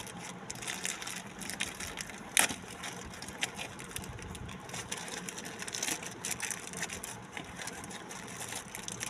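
Packaging being handled and opened by hand: irregular crinkling and rustling with scattered clicks, and one sharp snap about two and a half seconds in.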